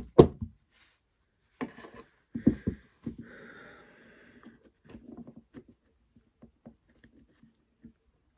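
Hard plastic drill-housing parts knock against a wooden tabletop as they are picked up and handled, then a small screwdriver scrapes and picks at the plastic housing in short strokes, carving out melted plastic. The knocks at the very start are the loudest; the scraping is soft, with scattered small ticks.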